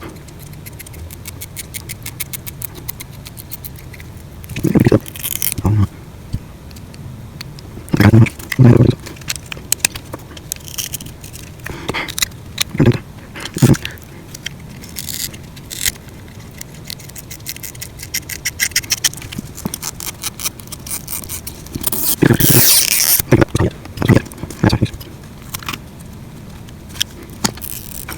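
A small tool scraping and prying at an iPhone SE's battery adhesive to work the battery out of the housing, with quick clicks and taps and several louder bursts of scraping.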